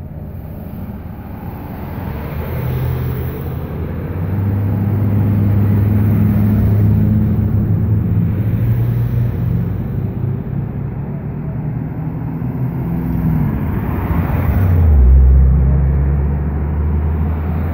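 Motor vehicle engines running close by: a steady engine hum that grows louder after about four seconds, with a deeper engine note swelling loudest about fifteen seconds in.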